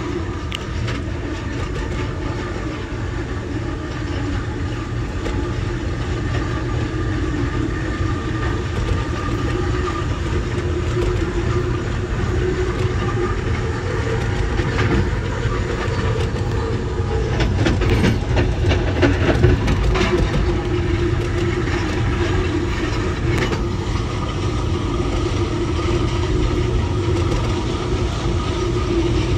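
Amtrak Southwest Chief passenger train running on the rails, heard from on board: a steady wheel-and-rail rumble with a held hum. Sharp clacks cluster about halfway through as the wheels pass over track joints and switches.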